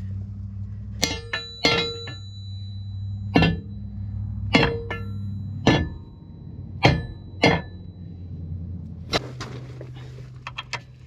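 Metal clanging: about ten sharp strikes on steel parts, each ringing briefly, some in quick runs and others spaced a second or so apart. Under them runs a steady low hum that drops slightly in pitch about nine seconds in.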